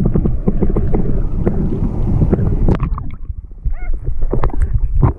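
Stream water sloshing and splashing close to the microphone, with many short knocks and a low wind rumble; it eases off about three seconds in.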